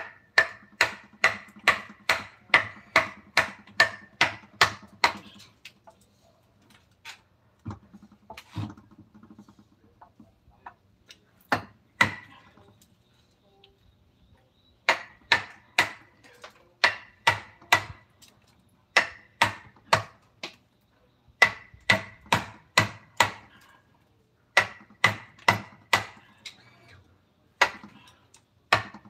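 Mallet driving a carving chisel into wood: runs of quick, even blows, about two to three a second, each with a short ring. The runs are broken by brief pauses, with a longer lull of only scattered taps in the middle.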